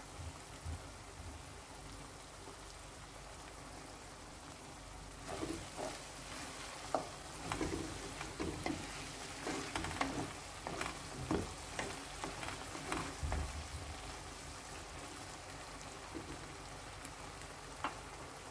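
Tomato, green pepper and onion sauce sizzling in a nonstick pot. For several seconds in the middle a wooden spoon stirs it, with irregular knocks and scrapes against the pot.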